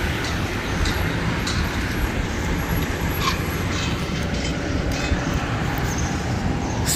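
Steady vehicle and road noise with a low engine hum and a few faint ticks, even in level throughout.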